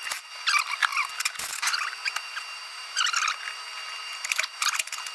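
Plastic valve cover of a BMW B38 engine being worked free by hand: short bursts of squeaking and scraping with light clicks as the cover and its rubber seal rub loose, about half a second in, around three seconds and again near the end.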